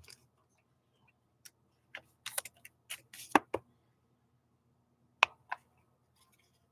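Thick trading cards being handled, tapped against a stack and set down on a desk mat: scattered light clicks and taps, with a cluster about two to three and a half seconds in and a sharp tap about five seconds in.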